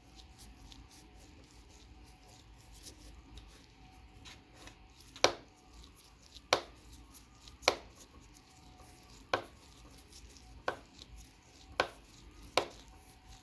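A small screwdriver working the last cover screw of a laptop hard drive's metal case. Faint handling at first, then from about five seconds in a series of sharp metallic clicks, about one a second.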